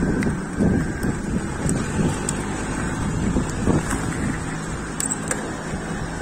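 Wind rushing over the microphone of an electric bike riding along a road, with steady road noise underneath.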